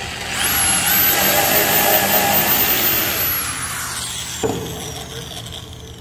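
Bosch corded electric drill spinning up and running at high speed for about three seconds as it bores into a wooden panel, then released, its whine falling slowly as the motor winds down. A single short knock comes just after four seconds.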